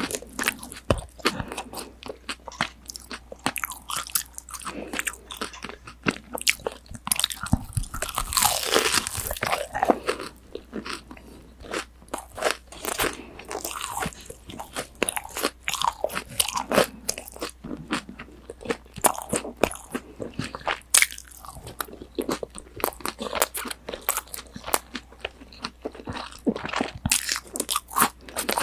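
Crispy breaded pork cutlet (tonkatsu) being bitten and chewed right at a binaural microphone: a continuous run of crunches, densest and loudest about eight to ten seconds in.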